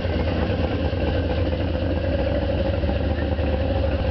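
Supercharged 1955 Chevrolet hot rod's engine running at a low idle as the car rolls slowly by, a steady deep rumble.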